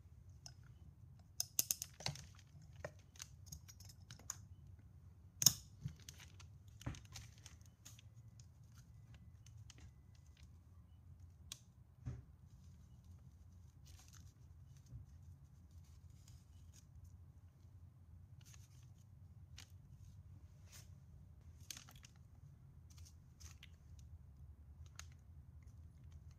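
Quiet handling sounds at a workbench: a metal spoon clicking and tapping against small cardboard tubes and jars as powder is spooned in, the loudest tap about five seconds in, then soft scattered rustles and ticks of thin paper strips being handled and wrapped around a small paper ball shell.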